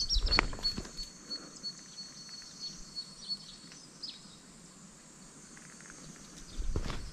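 Footsteps of a person walking on a hiking trail, a few steps at the start and again near the end, quiet in between. Under them runs a faint, high, steady chirping call.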